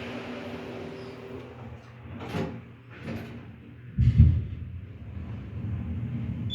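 Elevator doors sliding with a couple of knocks, then a heavy thud about four seconds in as they close, followed by a low rumble.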